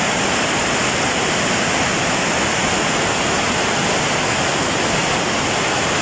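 Fast-flowing stream rushing over rocks in rapids: a steady, unbroken rush of water.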